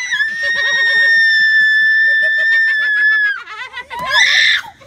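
A woman's long, high-pitched scream of fright, held steady for about three seconds, with people laughing underneath; a second short shriek comes near the end.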